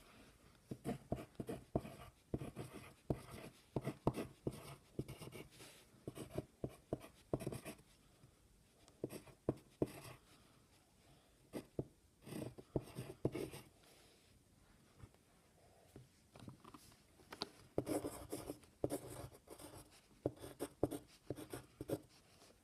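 Pencil writing on brown paper: quick, irregular scratching strokes as letters are written, with a short pause of a couple of seconds past the middle.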